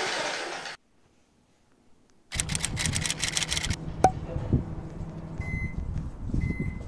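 Electric demolition hammer running, cut off abruptly under a second in. After a short silence comes a burst of rapid clicking, then a low rumble with two short high beeps about a second apart near the end.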